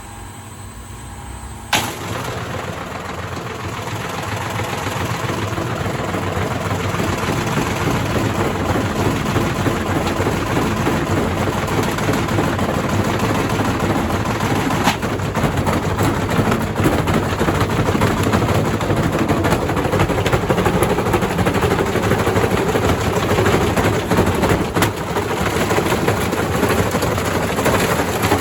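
Bricks banging rapidly against the drum of an Indesit IWDC6105 washing machine as it starts turning, a dense stream of hard impacts that begins suddenly about two seconds in and grows louder over the next few seconds as the drum speeds up.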